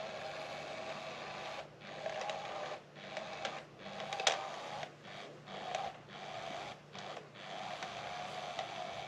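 Small electric motor of a SmartyKat Hot Pursuit cat toy whirring, stopping for brief moments about ten times and starting again, with a few sharp clicks, the loudest about four seconds in.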